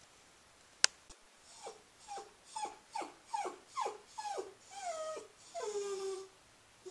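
Cairn terrier whining: about ten short whimpers in a row, each falling in pitch, ending in a longer, lower held whine, after a single sharp click about a second in. It is her habitual after-dinner whining while she carries her stuffed hedgehog toy.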